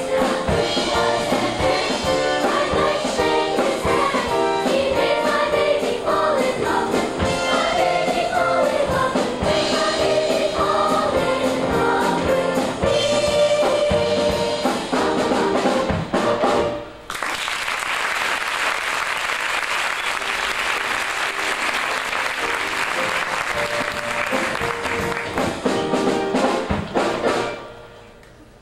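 Children's show choir singing a number with instrumental accompaniment; the song ends about seventeen seconds in and the audience breaks into applause for about ten seconds before it dies away.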